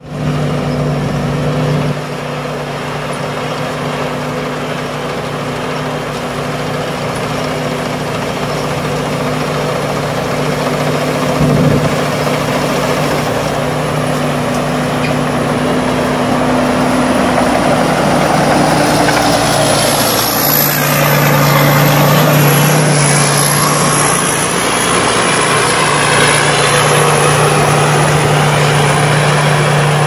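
Rice combine harvester running under load while cutting and threshing rice: a steady engine drone with the rushing noise of the threshing machinery, growing louder about two-thirds of the way through as the machine passes close.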